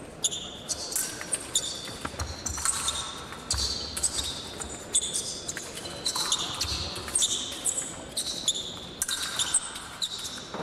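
Fencers' shoes squeaking and stamping on the piste during an épée bout: many short, high squeaks mixed with low thuds of footwork and lunges.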